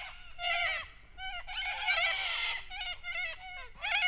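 Sulphur-crested cockatoo giving a series of harsh, raucous screeches in quick succession, with a longer run of calls about two seconds in.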